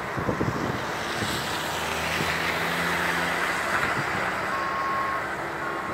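A motor vehicle's engine running amid steady road noise, with a reversing alarm starting to beep about once a second near the end.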